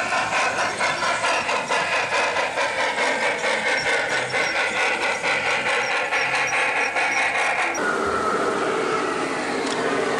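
Garden-scale model train running close by on its track, making a fast, even mechanical clicking rattle that pulses about four times a second. About eight seconds in, the sound changes abruptly to a smoother running rumble with a faint falling whine as a model train rolls past.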